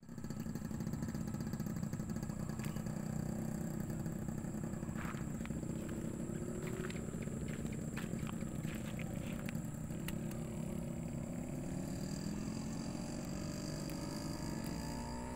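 A small engine running steadily, its pitch rising a little over the last few seconds, with a few light clicks partway through.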